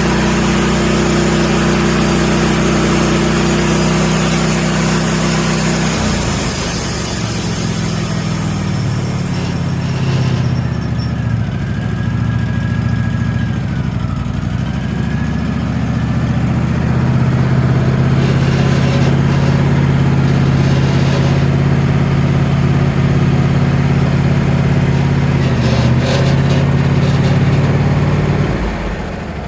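A machine engine running steadily, changing speed about six seconds in and again around seventeen seconds, then dropping away near the end.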